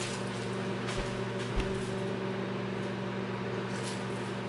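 Steady electrical hum of a running kitchen appliance, with two faint low thumps about a second and a second and a half in.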